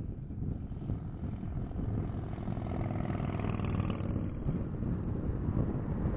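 Wind buffeting the microphone, with an engine passing by that swells to a peak about three to four seconds in and then fades.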